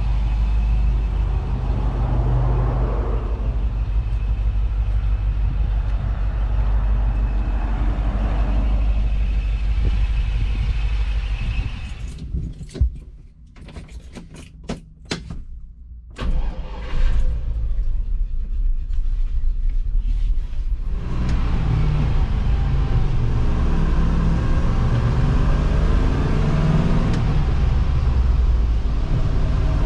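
Land Rover Defender 110's V8 engine idling with a steady low rumble, heard from outside the truck. About twelve seconds in it drops to a quiet cab with a few sharp clicks; a knock comes at about sixteen seconds, the V8 runs again, and from about twenty-one seconds it runs louder as the truck drives, heard from inside the cab.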